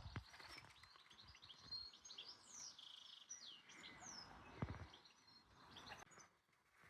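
Faint chirping of birds: many short, quick calls sliding down in pitch, with a soft knock about two-thirds through.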